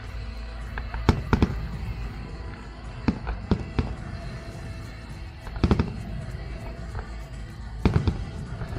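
Aerial firework shells bursting overhead: sharp bangs in four clusters of two or three, roughly every two to two and a half seconds.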